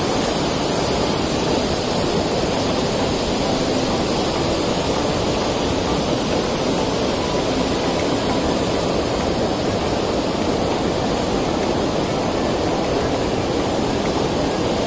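Mountain river rushing over boulders: a steady, even rush of white water.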